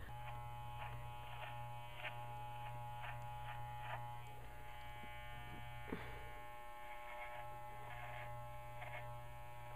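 Electric dog grooming clippers running with a steady buzz while shaving a dog's heavy coat, the sound shifting briefly now and then as the blade works through the fur.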